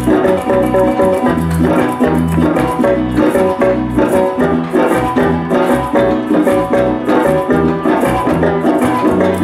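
Live joropo llanero music: llanera harp and cuatro playing a fast plucked tune over a shaken maraca rhythm, with a steady bass line underneath.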